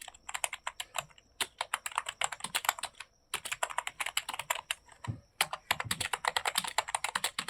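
Computer keyboard being typed on rapidly, a fast, uneven run of key clicks as a typing test is worked through, with a brief pause about three seconds in.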